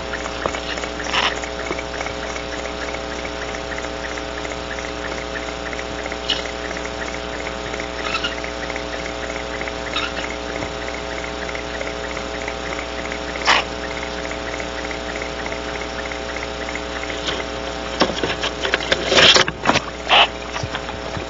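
Crickets chirping over a steady electrical hum made of several pitches. Occasional short, sharp scratches or clicks break in, with a burst of several louder ones near the end.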